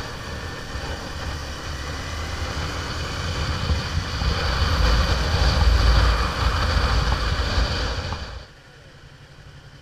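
Motorcycle riding at speed, wind rushing over the microphone with the engine's drone underneath, growing louder towards the middle. About eight and a half seconds in it drops off suddenly to a much quieter hum.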